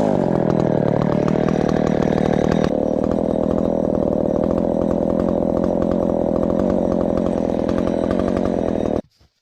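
Ported Husqvarna 372XP two-stroke chainsaw running at a steady speed. It stops abruptly near the end.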